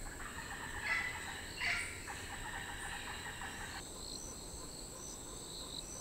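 Insects trilling: a steady high drone together with a fast pulsing trill that cuts off suddenly a little past halfway. Two brief chirps stand out, about one and two seconds in.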